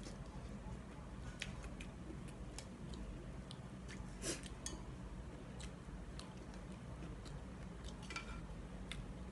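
Quiet eating sounds: wooden chopsticks and a wooden spoon clicking against an enamelware bowl while instant noodles are lifted and chewed. The small clicks come at uneven intervals, the loudest about four seconds in and a few more near the end, over a low steady hum.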